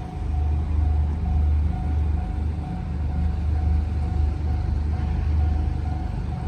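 A heavy engine rumbling steadily at a low pitch, with a faint higher tone sounding on and off above it.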